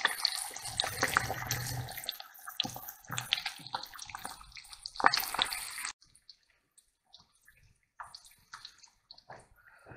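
Eggs frying in hot oil in a pan: a dense sizzle full of sharp popping crackles. It cuts off abruptly about six seconds in, leaving only faint, scattered crackles.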